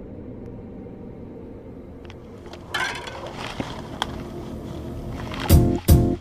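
Helmet-camera sound of a mountain bike riding a dirt trail: a steady rumble of wind on the microphone, growing louder with tyre and trail noise and a few clicks about three seconds in. Near the end, music with a heavy, regular beat starts over it.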